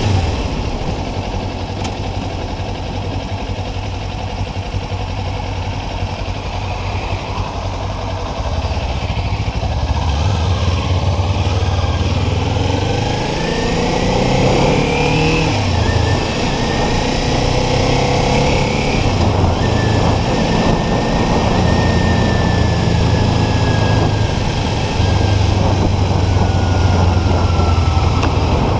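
Motorcycle engine running while riding, with the revs climbing about halfway through and then easing off.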